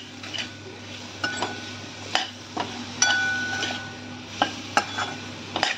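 A steel spoon stirring spiced raw mango pieces in a steel kadhai, scraping and knocking against the pan in irregular metal-on-metal clinks, a couple of which ring briefly. The pieces are being roasted in oil with their spices.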